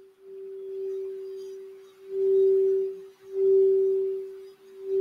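Crystal Alchemy singing bowl tuned for the throat chakra, sung by circling a wand around its rim. It holds one steady pure tone that swells louder and softer in waves, with short dips between swells.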